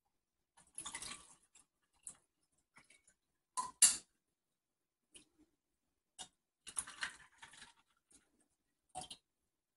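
Ice cubes clinking in a drinking glass and a plastic cup tapping against it as a drink is poured over the ice: a scatter of short clinks and taps, the sharpest about four seconds in.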